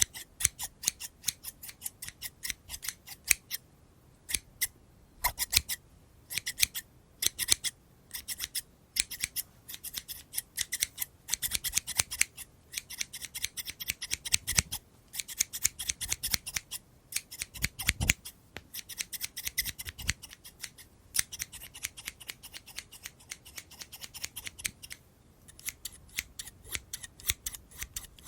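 Scissors snipping close to the microphone in quick runs of crisp snips, with short pauses between runs and a few soft low knocks.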